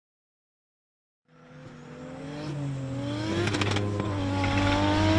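After a second of silence, the engine of a Nissan 200SX S14 drift car fades in and grows louder. Its pitch climbs steadily as the car accelerates through a drift, with tyre noise starting to build near the end.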